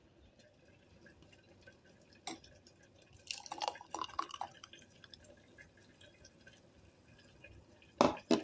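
Thick blended kiwi and green apple juice poured from a blender jug into a glass, splashing and gurgling for about a second and a half midway. A single knock comes shortly before the pour, and two sharp knocks near the end.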